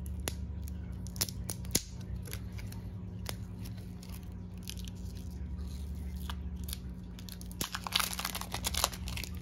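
Cellophane shrink-wrap being torn and peeled off a deck of game cards by hand: scattered crackles and tearing, with a denser burst of crinkling near the end.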